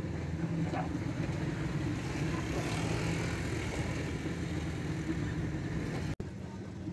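Outdoor street noise dominated by a motor vehicle engine running steadily, a continuous low hum.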